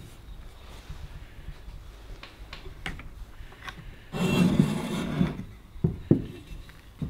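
A Stanley Bedrock No. 608 jointer plane's cast-iron body handled on a wooden workbench: a few light clicks, then about a second of scraping as it slides across the bench, then two sharp knocks against the wood.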